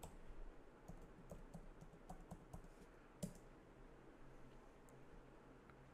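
Faint, irregular clicks of keys being typed on a keyboard, about a dozen taps, the loudest about three seconds in, over a faint steady low hum.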